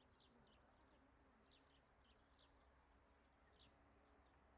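Near silence with faint bird chirps: short falling chirps repeating irregularly, a few to each second or so, over a low outdoor hush.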